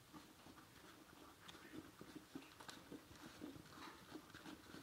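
Faint, irregular crunching and clicking of animals eating: a horse chewing feed from a bowl and an Airedale puppy eating the spilled grain off the floor.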